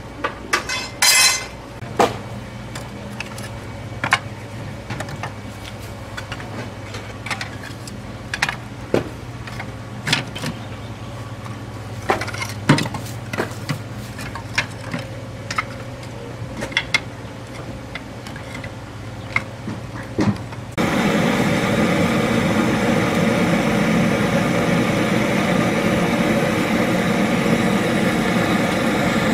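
Split bamboo and firewood knocking and clattering as the pieces are laid in a steel drum roaster, a sharp knock every second or so. About two-thirds of the way through, a handheld butane torch starts abruptly with a loud steady hiss as it is held to the wood to light the fire.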